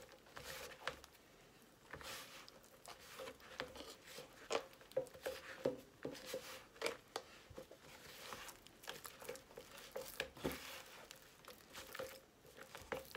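Hands kneading a sticky flour-and-water dumpling dough against the sides of a plastic tub, with water worked in bit by bit. Faint, irregular short scraping and rustling noises.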